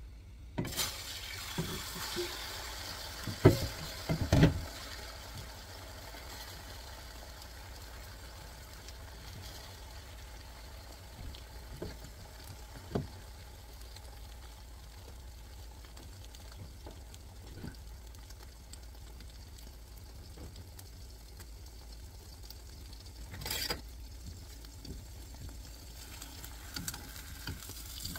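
Beaten egg with chopped chives and carrot frying in oil in a nonstick frying pan, a steady sizzle. A few sharp knocks come about three and four and a half seconds in.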